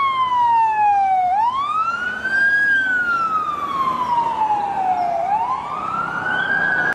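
Wailing fire-engine siren: one tone slides down, swoops back up, then falls slowly for a couple of seconds and rises again near the end.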